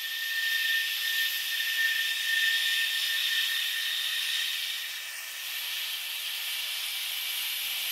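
Steady hissing noise, like static or escaping steam, with thin high whistling tones held through it and nothing deep underneath; it swells slightly over the first second.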